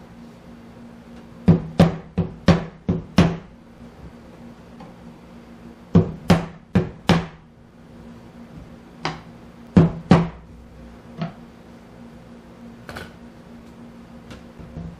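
A small mallet tapping the hardwood bow of a Windsor bowback chair down onto its spindles: sharp wooden knocks in quick runs of six and then four, then three more and a couple of fainter single taps.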